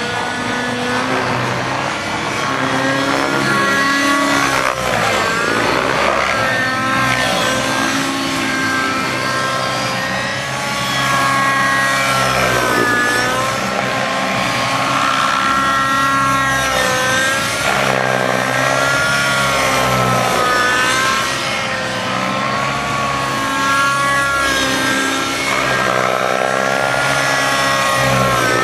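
A Thunder Tiger Raptor 90 nitro RC helicopter's glow engine and rotor blades running hard through 3D aerobatics. The pitch keeps rising and falling in waves as the engine is loaded and unloaded and the helicopter swings past.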